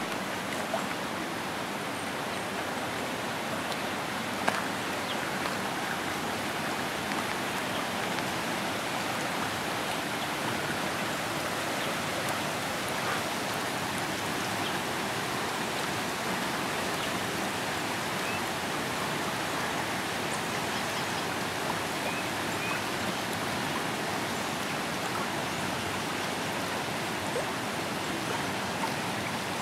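Water rushing steadily down a wooden mill flume, a constant even hiss with no change. A single brief click sounds about four and a half seconds in.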